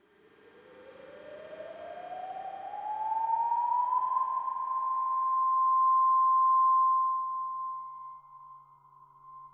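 A siren-like tone that climbs steadily in pitch for about four seconds, then holds one steady high note and fades down near the end.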